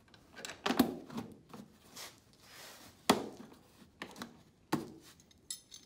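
Mahindra 3016 tractor's plastic dash side panel being pushed and fitted back into place: three sharper plastic knocks among smaller clicks, with a brief scraping rub between them.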